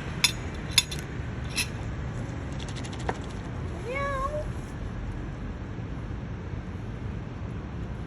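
A cat gives one short meow about four seconds in, rising in pitch and then levelling off. Three sharp clicks come in the first two seconds over a steady low background hum.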